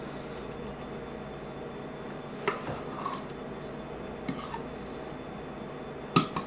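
A metal half-cup measuring cup knocking and clinking as soft filling is scooped and dropped onto dough. There are a few light knocks, with a sharper clink near the end, over a steady room hum.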